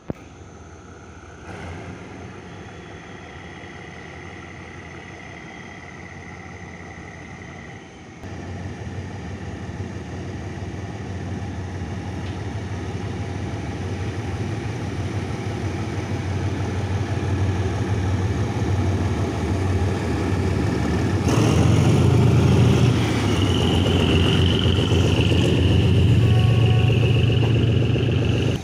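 Diesel locomotive engine running as the train approaches, the low engine sound growing steadily louder and loudest over the last several seconds.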